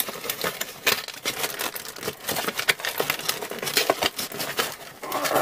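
Cardboard box and plastic wrapping rustling and crinkling in quick irregular scrapes and clicks as a lamp is tugged out of its tight-fitting packaging.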